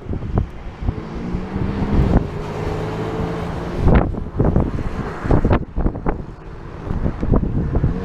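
Wind buffeting the microphone in uneven gusts. A distant car engine runs steadily on the racetrack from about a second in to about four seconds in.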